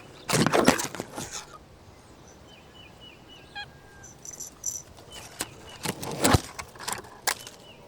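Outdoor ambience: several short bursts of rustling and brushing, the loudest near the start and again in the second half, with brief runs of thin, high chirps in between.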